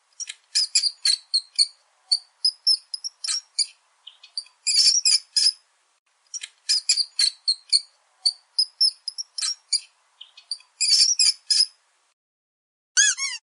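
Squeaky dog toy sound played in rapid clusters of short, very high-pitched chirping squeaks; the same run of squeaks repeats about halfway through. Near the end a different squeak glides down in pitch.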